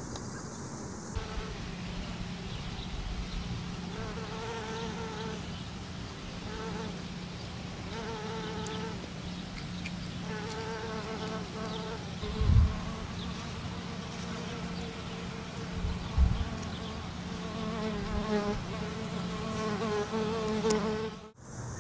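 Flying insects buzzing, their pitch wavering as they come and go in several stretches, over a steady low hum. Two short low thumps, about halfway through and a few seconds later, are the loudest sounds.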